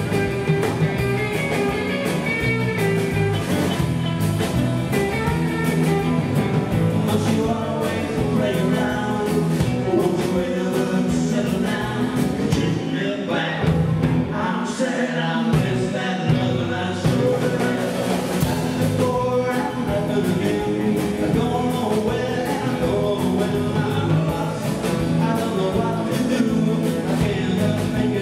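Live rock and roll band playing: electric guitars over a driving drum kit beat.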